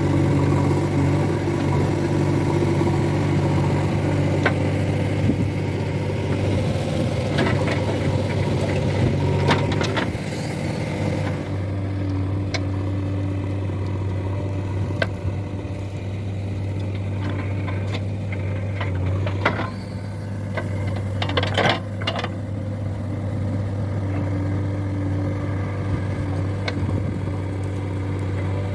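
Heavy diesel engine running steadily, its note dropping lower about ten seconds in and holding there, with occasional metal knocks and rattles.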